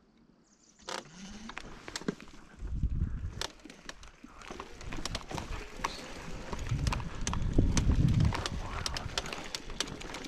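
Footsteps through grass and brush with camera handling noise: rustling and irregular clicks and knocks starting about a second in, with low rumbles around three seconds in and again near eight seconds.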